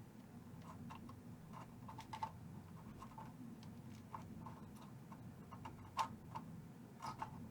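Faint, irregular light ticks and clicks of desoldering work on a vintage tube amp's chassis, with a slightly louder click about two seconds in and another about six seconds in, over a low steady hum.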